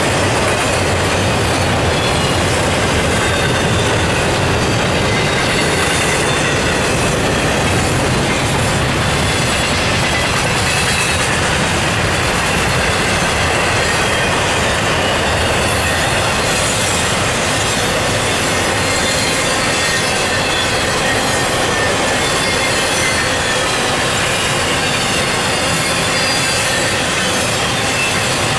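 Double-stack container train rolling past at speed: a steady, loud rumble of steel wheels on rail from the passing well cars, with a thin, wavering high wheel squeal running through it.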